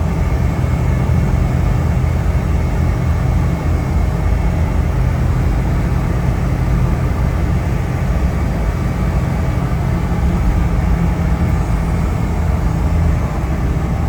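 Steady low rumble of a moving motor vehicle, engine hum and road noise without a break.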